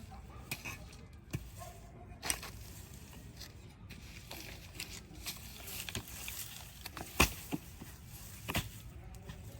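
Potatoes being dug out of garden soil: soft scraping and rustling of earth, with a few sharp knocks, the loudest about seven seconds in.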